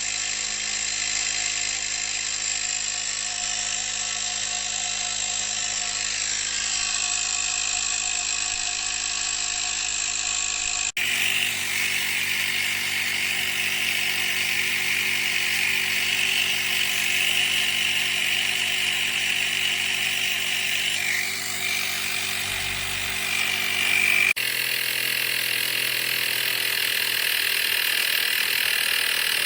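Small portable electric tyre-inflator compressor running steadily, a continuous motor-and-pump drone. The sound changes abruptly twice, about eleven and twenty-four seconds in.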